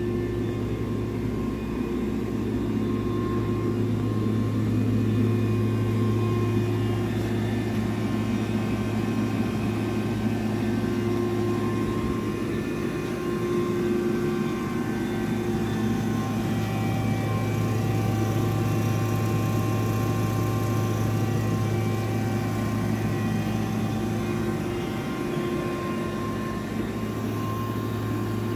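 Steady mechanical hum from the powered-up Johnford DMC-2100H CNC bridge mill and its running auxiliary units, with a strong low drone and a few fixed tones above it.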